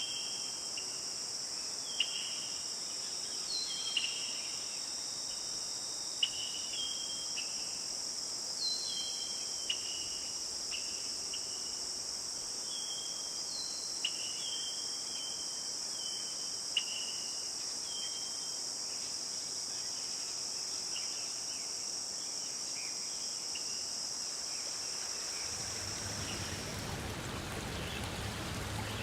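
Steady, high-pitched chorus of crickets and other insects, with short chirping calls and clicks repeating every second or two over it. Near the end the insect chorus fades out and the steady rush of a stream takes over.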